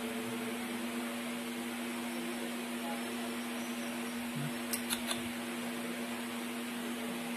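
Steady hum of an electric fan, with three quick light clicks close together about five seconds in, as metal tweezers tap the plastic tub.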